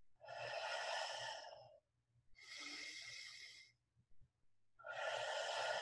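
A woman taking slow, deep belly breaths: three long, airy breaths, each about a second and a half, with short pauses between them.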